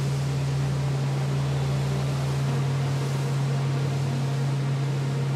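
Suzuki outboard motor running steadily at speed with the boat underway: one unbroken low drone over the rushing hiss of wake and wind.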